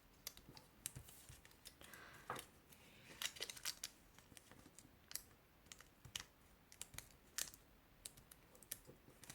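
Faint, irregular crinkles and light ticks of colored origami paper being folded and creased by hand, a little louder in short clusters a few seconds in and again near the end.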